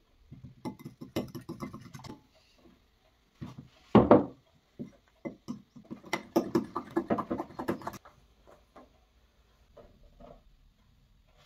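Metal utensil stirring a flour-and-water batter in a glass bowl, with rapid clinking and scraping against the glass in two runs. There is one louder thump about four seconds in.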